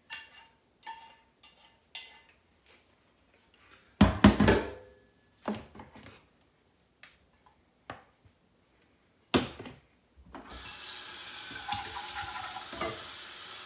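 Utensils clinking and scraping against a pot and bowl, with a louder clatter about four seconds in and a sharp knock near nine seconds. Then, about ten seconds in, a kitchen faucet comes on and water runs steadily into the sink.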